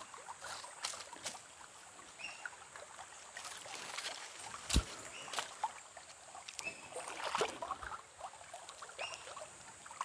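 Bare feet wading and splashing in a shallow stream, with scattered small knocks and one sharp knock about five seconds in.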